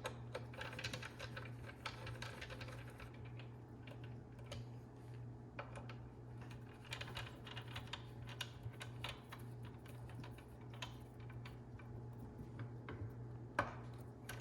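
Irregular light clicks and ticks of small metal parts being handled: screws being fitted and turned by hand into the chop saw's blade safety cover, with one louder click near the end, over a low steady hum.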